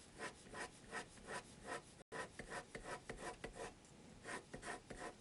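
Rotring 600 mechanical pencil's 0.7 mm HB lead scratching across paper in quick back-and-forth strokes, about four a second. The strokes stop briefly about three and a half seconds in, then a few more follow.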